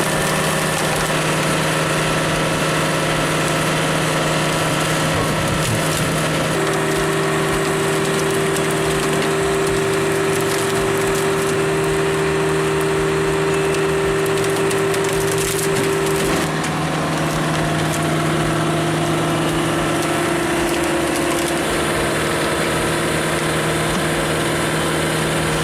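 Large engine-driven hydraulic log splitter at work: a steady engine and pump drone with wood cracking and splintering as logs are split. One pitch in the drone comes in about six seconds in and drops slightly under load about ten seconds later.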